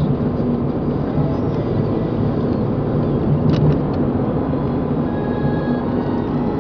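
Steady road and engine noise inside a moving car's cabin, with a faint click about three and a half seconds in.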